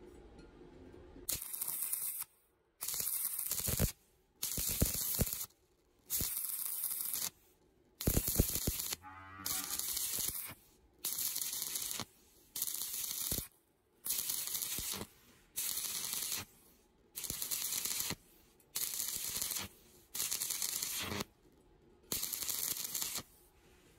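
Stick (arc) welding a thin steel pipe to a steel plate: the electrode's arc crackles and hisses in about fourteen bursts of roughly a second each, with brief pauses between them. This is the arc being broken and restruck again and again, a stitch technique that keeps heat down in thin pipe.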